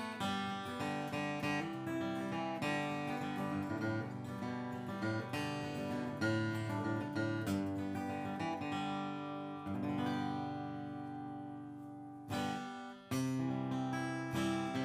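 Martin D-28 Authentic 1937 rosewood dreadnought acoustic guitar on fresh strings, flatpicked in a mix of single notes and strummed chords. About ten seconds in, a chord is left ringing and dies away. After a brief break the playing starts again.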